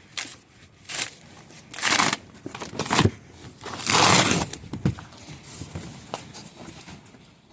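Packaging being handled while a box is unpacked: a series of short rustling and scraping bursts, about seven in all, the two longest and loudest about two and four seconds in.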